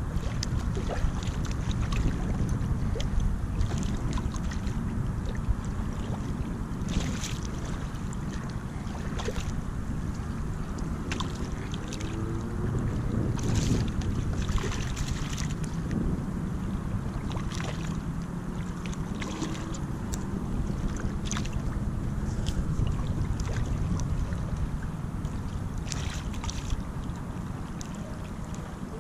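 Wind rumbling steadily on a GoPro's microphone, with small waves lapping at the sandy shoreline in short, scattered splashes.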